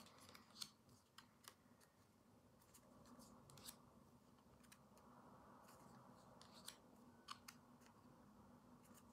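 Near silence broken by scattered faint clicks and soft slides of glossy oracle cards being taken off the deck and laid down one by one on a cloth.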